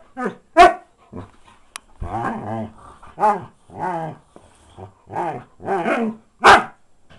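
Husky making its bleating, baa-like vocalisations: a quick string of about a dozen short, pitched calls with one longer drawn-out call about two seconds in and the loudest, sharpest one near the end. It is a play invitation to the other dog.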